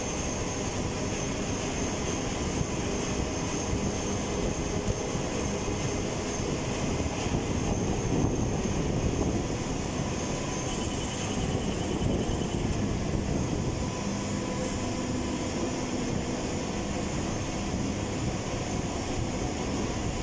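Metro train running through a tunnel: a steady rolling rumble of wheels on rail, with a thin, steady high whine over it.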